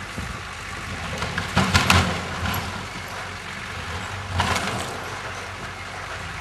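Vehicle engine running steadily off-camera, with two brief louder surges about a second and a half in and again near four and a half seconds, as if it is pulling on a cable.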